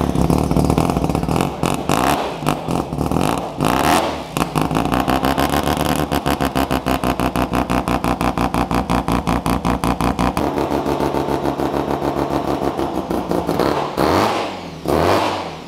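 Mazda 13B peripheral-port rotary engine running through an experimental exhaust, its lumpy idle a rapid, uneven pulsing. A few throttle blips near the end raise and drop the pitch.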